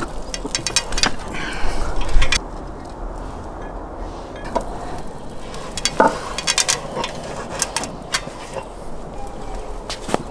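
Scattered metallic clicks, clinks and knocks of a steel skewer and hook against the brick rim of a tandoor as a hanging lamb carcass is lowered in and the skewer is set across the opening, with heavier handling noise in the first couple of seconds.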